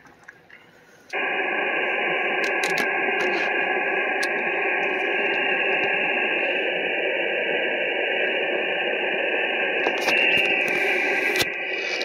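Icom IC-7300 transceiver's speaker playing steady static on 20-metre upper sideband: a flat, hissy band noise that comes on suddenly about a second in. A few light clicks sound over it.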